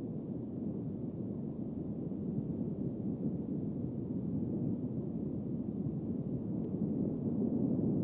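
A steady low rumble of noise with no distinct events, slowly getting louder.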